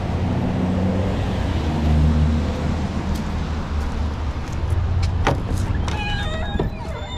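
Low rumble of street traffic going by, then clicks of a shop door's latch and the door being pulled open, with a few short high tones as it swings open near the end.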